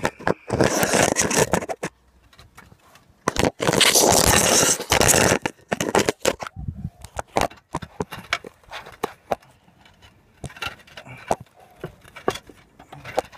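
Roof tiles being worked loose and shifted against each other: two loud, harsh scraping passes, the second about three seconds in, then scattered knocks and clicks as the tiles are handled. The tile is stuck in place with silicone.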